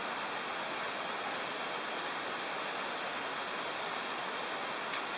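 Steady, even rushing background noise with a couple of faint small ticks near the end.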